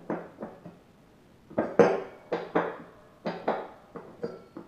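Short metallic clanks and knocks from a John Deere X300 mower deck as the newly installed blade spindle's pulley is turned by hand to check it. There are about ten knocks at irregular spacing, the loudest about two seconds in.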